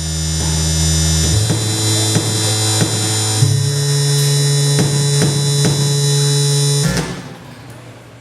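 Synthesizer music: held chords over a low bass note that steps up twice, with a light beat about two times a second. It stops suddenly about seven seconds in and dies away.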